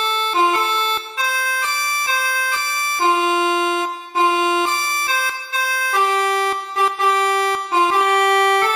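Basuri telolet multi-tone air horn on a bus playing a melody, loud reedy notes stepping up and down with short breaks between phrases.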